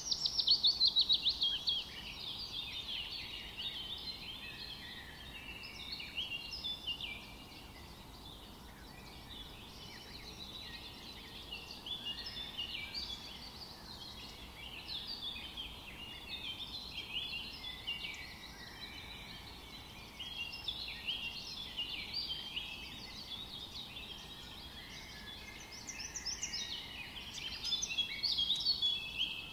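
A chorus of many small birds chirping, with short high calls overlapping without a break. It is loudest near the start and again near the end.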